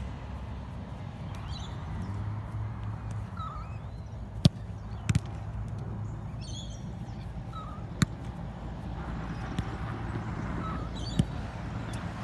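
Sharp knocks of a soccer ball being kicked on grass, a few scattered through, one of them a quick pair, with short bird calls and a steady low hum behind.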